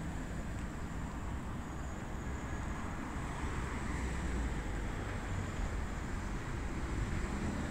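Steady outdoor street noise: a low rumble of traffic with wind on the microphone.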